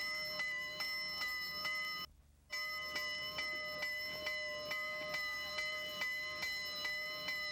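Steam locomotive bell of Southern Pacific 4449 ringing steadily, about two and a half strikes a second, each stroke renewing a ringing tone. The sound cuts out for about half a second roughly two seconds in.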